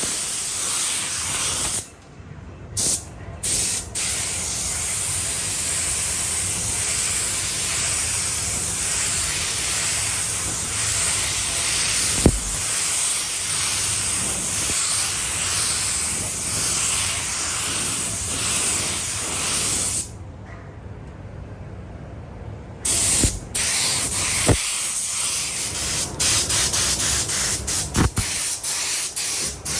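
Compressed-air paint spray gun hissing steadily as it sprays paint onto a car body. The hiss stops briefly about two seconds in, stops for about three seconds past the middle, and is cut by several quick trigger releases near the end.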